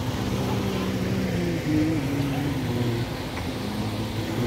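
Steady low rumble of the Bono tidal bore's churning water surging up the Kampar River, with bystanders' voices over it.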